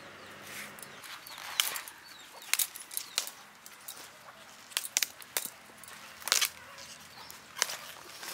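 Broccoli leaves and stalks rustling and crackling as hands work through the plant: an irregular run of sharp, crisp crackles, about nine of them.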